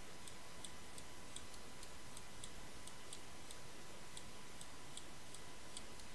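Faint, fairly even ticking, about two to three sharp ticks a second, over a steady hiss.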